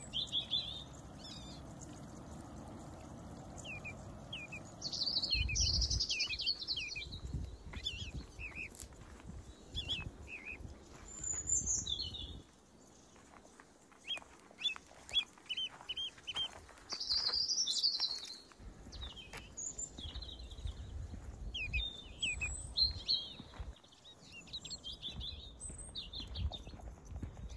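Small songbirds chirping and trilling in short repeated phrases, with stretches of low rumble on the microphone.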